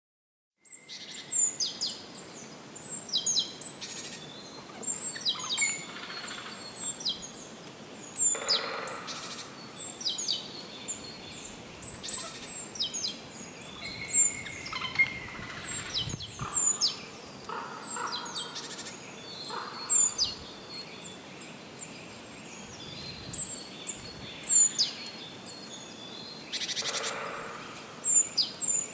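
Wild birds chirping and singing, starting about a second in: many short, high calls that slide downward, repeating every second or so.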